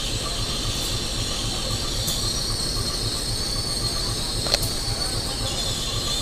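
KAI diesel-electric locomotive running slowly with a low pulsing engine rumble, over a thin, steady high squeal of steel wheels on the rail. A single sharp click about four and a half seconds in.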